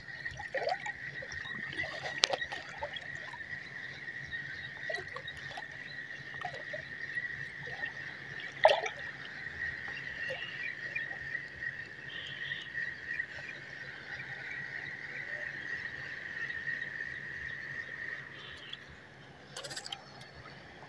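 Sougayilang 3000 spinning reel being cranked steadily on the retrieve: a continuous high whirr from its gears and spinning rotor that stops near the end. A couple of sharp knocks sound about 2 and 9 seconds in.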